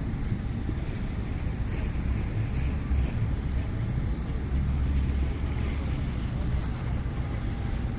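Steady low rumble of car engines, swelling a little twice, with wind buffeting the microphone.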